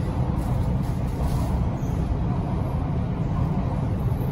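Steady low rumble of a Mumbai Metro Line 1 train running along its elevated track, heard from inside the carriage.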